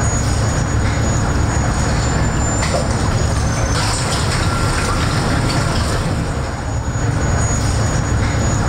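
Seawater rushing and churning into the fuselage of a sinking Boeing 737, a loud, steady rumbling roar heard from inside the flooding cabin as it fills.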